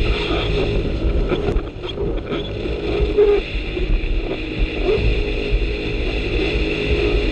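Jet ski engine running at speed with a steady drone, hull and water rushing underneath; the level dips briefly about two seconds in.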